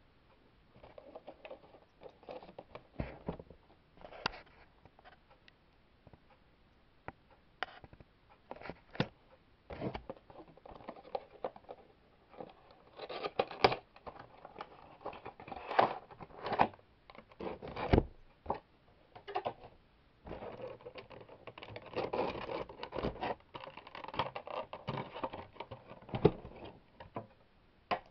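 A cardboard model box and its clear plastic display case being handled and unpacked: irregular scraping, rustling and sharp clicks and knocks, busiest in the middle and again near the end.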